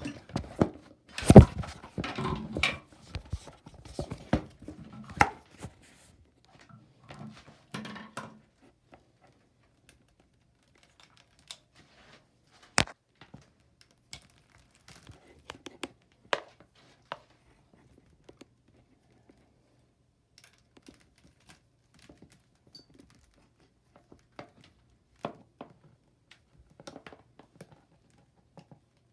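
Hands handling the bidet sprayer parts during installation: a loud thunk about a second in, a busy run of knocks, clicks and rustling for several seconds, then only scattered single clicks and knocks.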